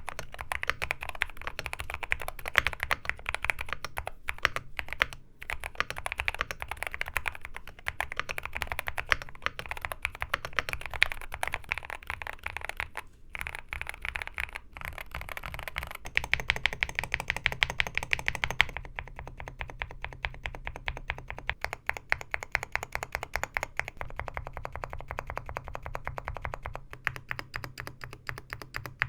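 Fast typing on an AKKO MU01 mechanical keyboard in a walnut wood case: a dense, continuous clatter of keystrokes. The character of the clatter changes about two-thirds of the way in, when the sample goes from the stock keyboard to the modded one, with lubed stabilizers and lubed switches under the long keys.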